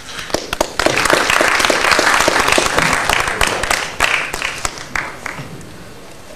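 Audience applauding. The clapping swells within the first second, holds for about three seconds, then thins out to a few scattered claps about five seconds in.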